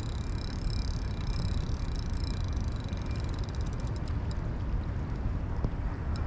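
Wind rumbling on the camera microphone, with quick bursts of rapid clicking from a spinning fishing reel as a hooked lake sturgeon is played. The clicks come about four seconds in and again near the end.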